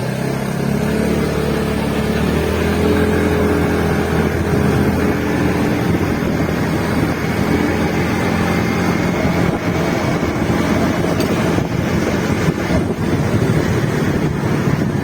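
A motor vehicle's engine running steadily, its pitch holding nearly constant with a slight drift.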